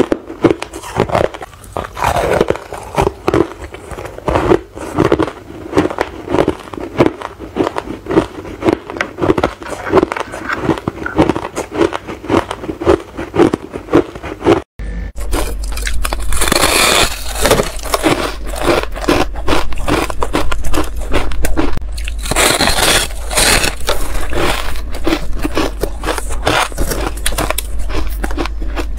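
Frosty ice being bitten and chewed close to the microphone: crisp crunches about twice a second. After a cut about halfway through, the crunching of thick frosty ice gets louder and denser over a steady low hum.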